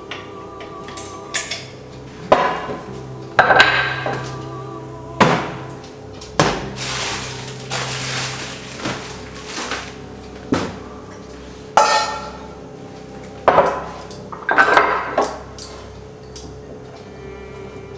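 Metal kitchenware, steel dishes and utensils, clanking and knocking together about seven times, several knocks ringing on briefly.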